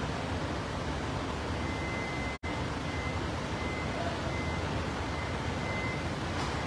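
Steady low noise of an underground car park with a vehicle running, plus a faint thin high whine from about a second and a half in. The sound cuts out for an instant about two and a half seconds in.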